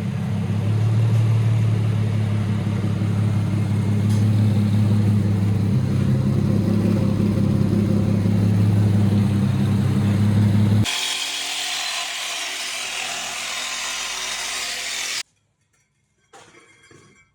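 Infiniti's engine idling steadily through its test-pipe exhaust, the ticking leak noise gone after a new test-pipe gasket. About eleven seconds in it cuts to a loud, even hiss for about four seconds, followed by quiet with a few faint metal clinks.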